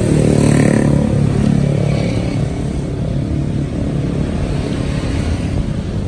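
Street traffic: a motor vehicle's engine passing close, loudest in the first two seconds and then fading, over a steady low rumble.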